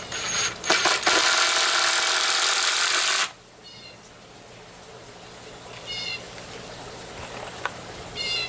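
A few clicks, then a loud, steady rushing or whirring noise that runs for about two and a half seconds and cuts off abruptly. Short high chirps follow, three times, against a quieter background.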